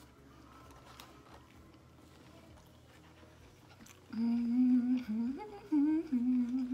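A woman humming a closed-mouth "mmm" of enjoyment while chewing food. The hum starts about four seconds in and lasts about two and a half seconds, its pitch rising and falling in the middle. Before it there is only faint chewing.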